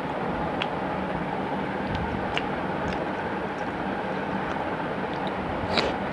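A steady low background noise, over which come a few faint, sharp clicks and scrapes of fingers mixing rice and curry on a steel plate, the clearest click just before the end.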